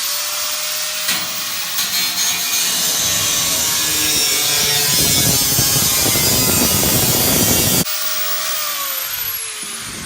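Power cutting tool spinning up with a rising whine and cutting through a sheet-metal lawnmower hood for about seven seconds. It is released about eight seconds in and winds down with a falling whine.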